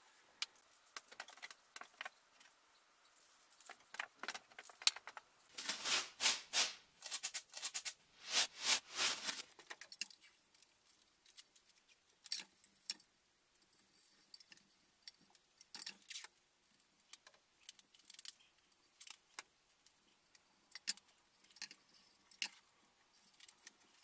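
Blue painter's tape being pulled off its roll and wrapped around a wooden post: crackly ripping in quick strokes, thickest in the first half, then scattered crackles and clicks as the tape is pressed on.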